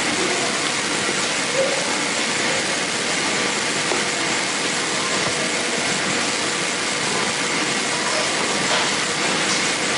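Steady loud hiss of background noise with a few faint steady tones in it, and a couple of faint clicks near the end.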